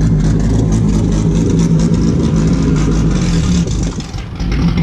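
Fiat 147's naturally aspirated, carbureted Fiasa four-cylinder engine running at low revs with a steady note as the car rolls away slowly. It dips briefly near the end.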